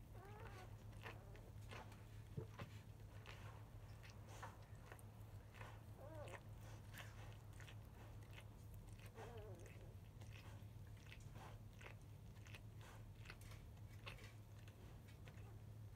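Newborn Labrador Retriever puppies suckling while their mother licks them: faint wet smacking and clicking sounds, irregular throughout, with a few soft squeaks.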